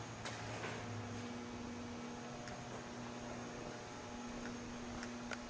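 Steady low electrical hum over a faint hiss, with a few faint clicks near the start and near the end.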